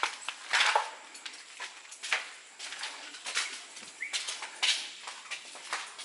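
Footsteps crunching and brushing through ground litter and undergrowth on an overgrown path, a scuffing step roughly every second, with rustling between.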